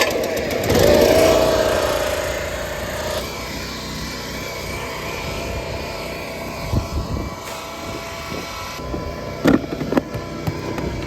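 Pressure washer's small gasoline engine running, its pitch wavering and rising over the first couple of seconds before settling into a steady hum. A few sharp knocks come in the last few seconds.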